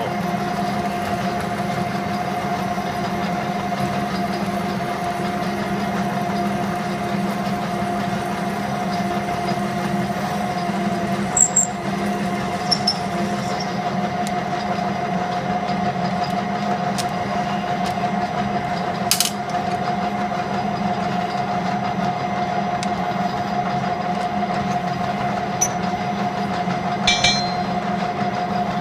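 Metal lathe running steadily with a steady whine, as a 5/8-inch drill bit fed from the tailstock cuts into 1018 steel, making a good chip. A few short sharp ticks come through now and then.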